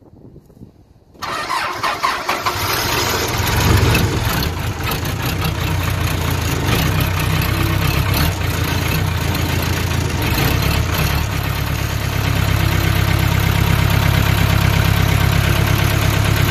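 Case 580K backhoe's diesel engine starting about a second in, running unevenly for a couple of seconds as it catches, then settling into a steady idle that grows a little louder over the last few seconds. This is the first start after a thermostat replacement.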